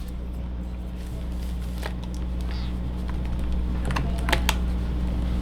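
A few sharp plastic clicks as a keycap is worked off the low-profile Royal Kludge RK N80 keyboard with the included keycap puller: one about two seconds in and a quick run of three near the end. A steady low hum runs underneath.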